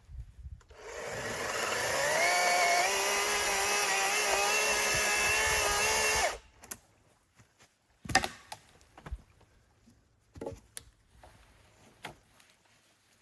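A motor-driven tool spins up over about a second, runs at a steady pitch for about five seconds, then stops abruptly. A few sharp knocks follow.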